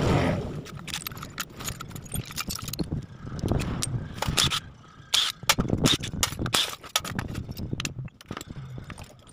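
Cordless impact driver rattling in short bursts as it loosens bolts on a Kawasaki Fury 125 motorcycle engine, with light metallic clinks of bolts and tools in between.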